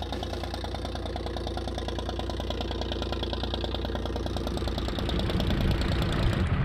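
Inboard engine of a small wooden fishing boat puttering steadily with an even, rapid pulse as it motors past, growing louder toward the end.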